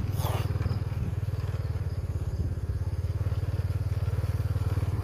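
Small motorcycle engine running steadily at low road speed with an even low putter. A brief high sound slides down in pitch right at the start.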